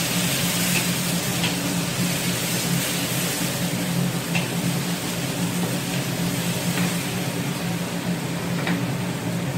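King oyster mushroom slices sizzling in a carbon-steel wok over high heat, turned with a wooden spatula that scrapes the pan a few times, over a steady low hum.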